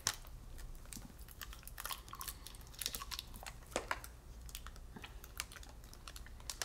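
Faint, irregular crinkles and clicks of a small candy bar's plastic wrapper being handled and opened.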